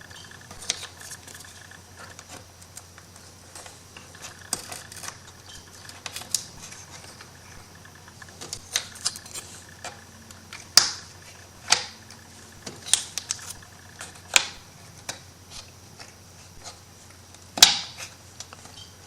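Irregular light clicks and taps of thin MDF wood pieces being handled and slotted together, a few of them sharper knocks, over a faint steady hum.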